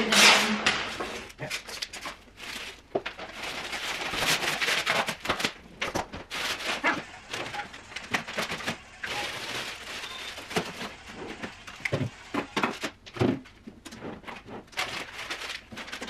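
Plastic packaging rustling and crinkling in irregular bursts as protective wrap is pulled off and out of a new fridge, with a few sharp knocks of handling.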